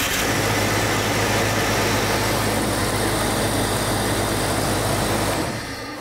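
1996 Jeep 4.0-litre inline-six idling steadily just after starting. The sound dies away near the end.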